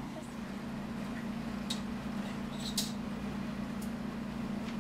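A steady low hum of background room noise, with a few faint, short clicks scattered through it.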